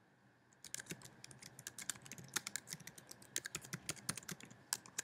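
Typing on a computer keyboard: a quick run of key clicks that starts about half a second in and goes on in short bursts.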